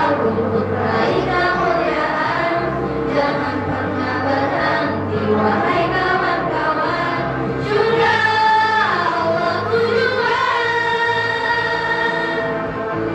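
Choir singing in harmony, with long held notes.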